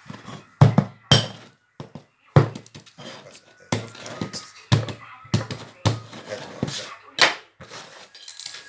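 A steel meat cleaver chopping down onto a painted EVA-foam prop butcher's block, a dozen or so irregular dull thuds.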